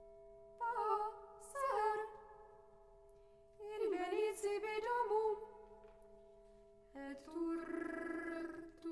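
Mezzo-soprano voice singing two short, wavering, sliding phrases over a steady held note. About seven seconds in, instruments come in with a fuller sustained chord.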